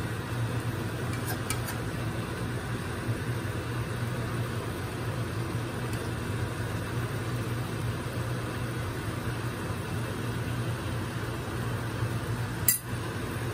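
Pork steak simmering in sauce in a nonstick frying pan, under a steady low hum with a faint hiss. A single sharp click sounds near the end.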